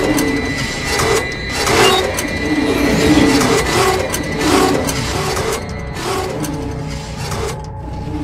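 Background music with low sustained notes and repeated percussive hits, less than a second apart, with a faint steady high tone over the first half.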